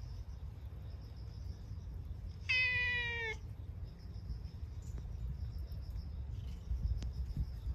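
A cat meows once about two and a half seconds in: a single call of just under a second that drops slightly in pitch at the end.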